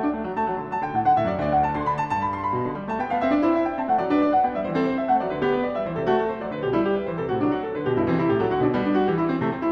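Background solo piano music with a moving melody over a steady stream of chords.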